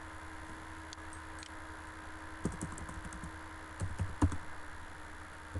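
Computer keyboard keys clicking in two short flurries, about halfway through and again about a second and a half later, as a dimension value is typed in. A steady low electrical hum runs underneath.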